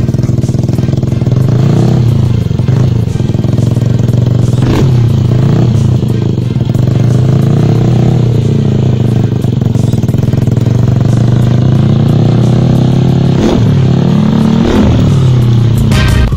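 Yamaha Aerox 155 scooter's single-cylinder engine idling through an aftermarket muffler, revved in several short blips, each rising and falling in pitch.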